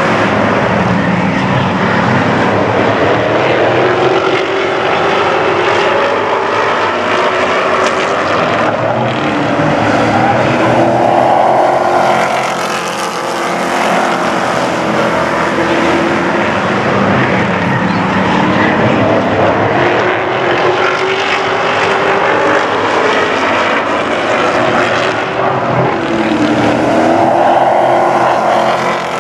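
A pack of pro truck race trucks running laps, their engines continuous and loud, the pitch rising and falling as the trucks come by. The sound swells loudest twice, about eleven seconds in and near the end.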